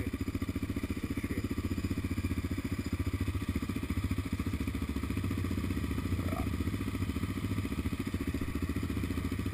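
Yamaha Raptor 700 quad's single-cylinder four-stroke engine idling steadily with a rapid, even pulse.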